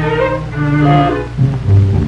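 Orchestral background music led by bowed strings, held melody notes over low bass notes.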